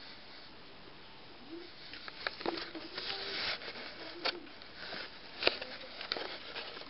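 Close rustling and scuffing right at the microphone, with several sharp clicks, as the phone is pushed up against a guinea pig's fur. Faint voices are talking in the background.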